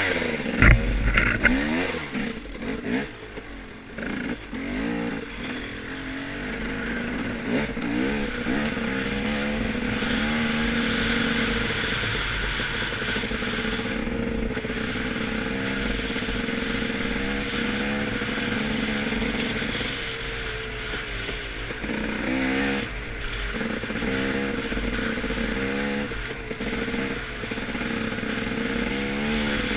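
Off-road dirt bike engine running under a rider, its revs rising and falling as it is ridden. There are a few sharp knocks in the first second or so.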